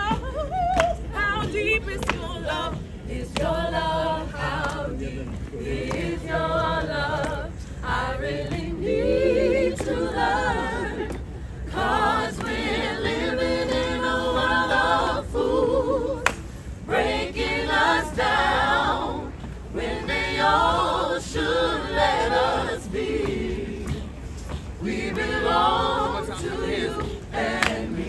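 Gospel choir of men and women singing a cappella, with hand claps among the voices.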